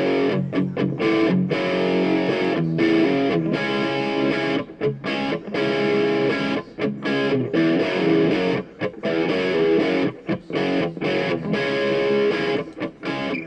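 Outro music: a distorted electric guitar playing a rock riff with a steady rhythm, starting abruptly.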